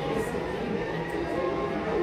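Background music playing, with people's voices underneath.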